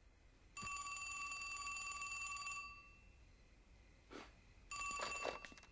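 Landline telephone ringing twice: a steady ring of about two seconds, then a second ring cut short after under a second as the call is answered.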